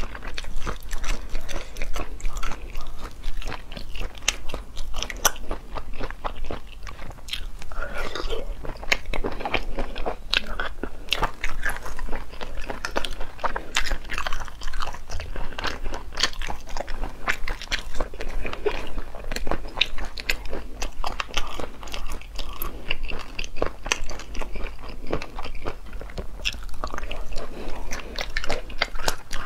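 Eating sounds of cooked cat's eye snails (turban snails): chewing and biting, with many sharp clicks and crunches as the shells are handled and picked apart by hand.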